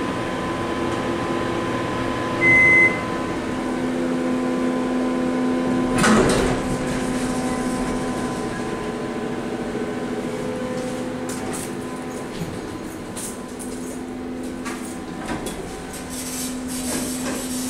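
Otis hydraulic elevator at a landing: a single short electronic beep about two and a half seconds in, then the cab doors sliding open about six seconds in. A steady hum from the cab's Pratt & Whitney ventilation fan runs underneath.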